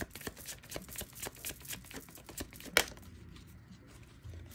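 A deck of tarot cards being shuffled by hand: a quick run of light card clicks, with one louder snap a little before three seconds in.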